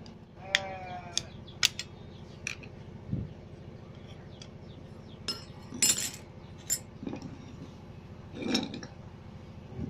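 A string of sharp metallic clicks and clinks, one ringing briefly about half a second in and the loudest near the middle, as a screwdriver pries the retaining clips off a Honda Vario 125's centrifugal clutch and the steel parts are handled and set down.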